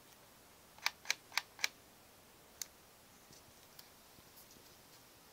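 Sigma 120-300mm f/2.8 OS lens making its odd noise: four sharp clicks about a quarter second apart, then a single click a second later and a few faint ticks.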